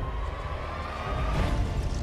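Intro music with a heavy bass and a faint tone that rises slightly, ending in a whoosh about a second and a half in.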